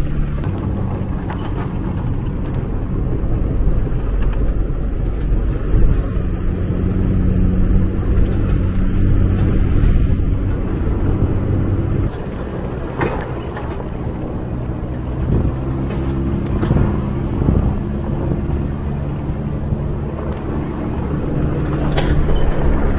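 Off-road vehicle's engine running as it drives a rough dirt trail, with a steady low rumble and a few sharp knocks and rattles. The deepest rumble eases about halfway through.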